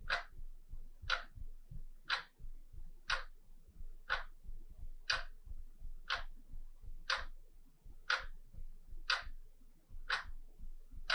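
Wall clock ticking steadily, one sharp tick about once a second with fainter knocks in between.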